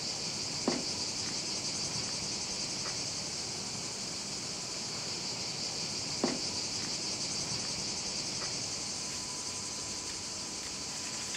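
Steady, high-pitched buzzing of a summer insect chorus, with two sharp snaps, one about a second in and another about six seconds in.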